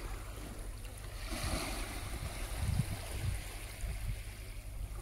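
Small sea waves washing against a rocky shore, with a low steady rumble underneath; the wash swells about a second in.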